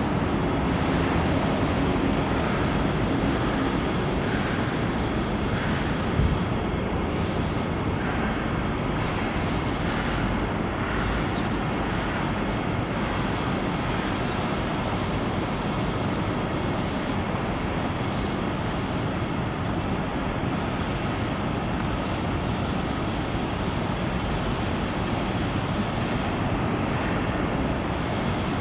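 Steady rushing background noise, like city traffic or machinery hum, with a faint high-pitched tone pulsing about once or twice a second and a single light knock about six seconds in.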